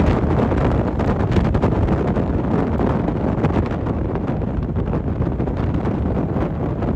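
Wind buffeting the microphone of a handlebar-mounted camera while riding along a road: a steady low rush with frequent faint crackles.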